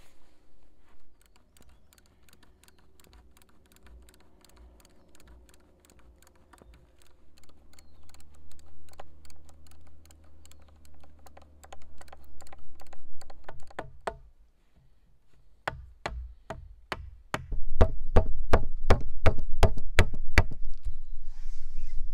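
A quick run of light clicking and tapping on wood. About two thirds in it gives way to a string of louder, hard wooden knocks, about four a second, from a wooden mallet striking a wooden chair-frame pole.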